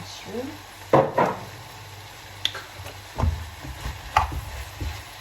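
Mushrooms tipped into a pan of sautéing vegetables with a loud clatter about a second in, then a spoon stirring and knocking against the pan in quick, irregular strokes.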